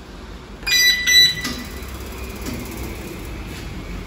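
Electronic control panel of a pizza deck oven beeping twice as its power button is pressed, two short high electronic beeps about a second in.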